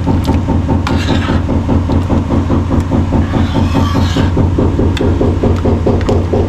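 A motor running steadily with a low hum and a rapid, even pulse, while a metal ladle scrapes and clinks a few times against a pan of thick sauce being stirred.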